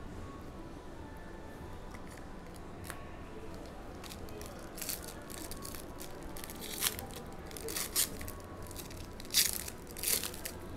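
Trading-card pack wrappers being torn open and crinkled by hand: a handful of short, sharp rips and rustles starting about halfway in, the loudest near the end.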